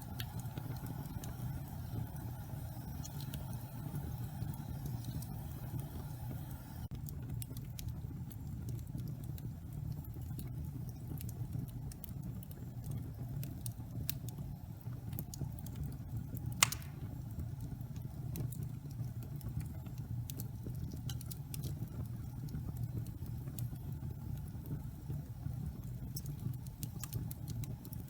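Wood fire burning in a fireplace: a steady low roar with scattered small crackles, and one sharp, loud pop about two-thirds of the way through.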